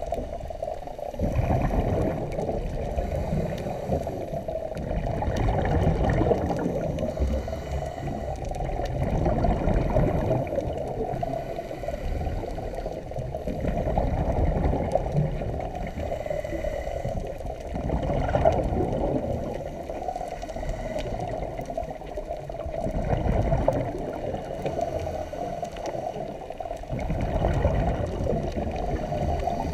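A scuba diver breathing through a regulator underwater, heard dull through the camera housing: bubbles gurgle out on each exhale, the sound swelling and fading about every four seconds.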